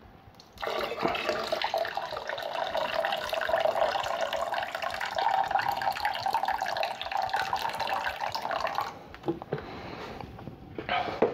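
Wort pouring in a steady stream from a plastic bucket into a stock pot, the grain bag held back as the runnings from sparging are collected for the boil. The pour starts about half a second in and stops about nine seconds in.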